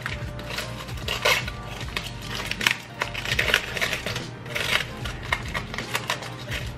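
Crumpled aluminium foil being peeled open and unfolded by hand, crinkling and crackling in uneven bursts.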